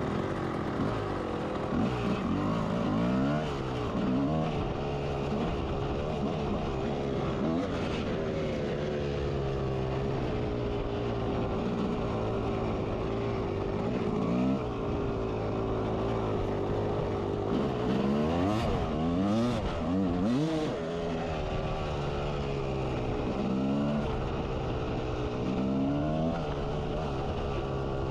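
1992 Kawasaki KX250's single-cylinder two-stroke engine under way, its pitch climbing and dropping again and again as the throttle is opened and eased off, with runs of quick climbs a few seconds in, past the middle and near the end.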